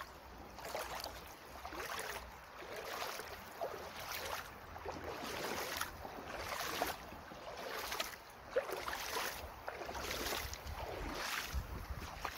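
Footsteps wading through a shallow sandy stream, each step splashing and swishing the water, about one step a second.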